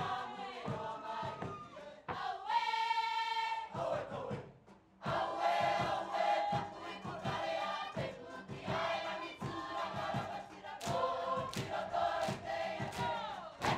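Large Cook Islands performing group singing in chorus over a regular beat. About two and a half seconds in, one long high note is held, the sound dips briefly, then the full group comes back in.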